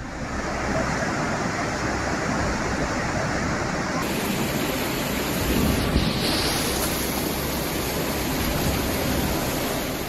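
Floodwater rushing past, a steady, loud noise of fast-moving water. About four seconds in the sound changes abruptly to a brighter, hissier rush of water flowing through a flooded street.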